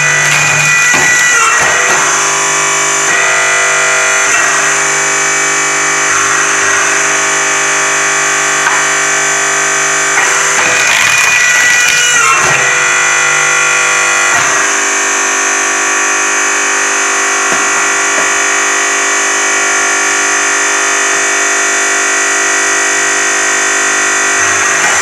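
Background music: sustained, held chords that change every few seconds.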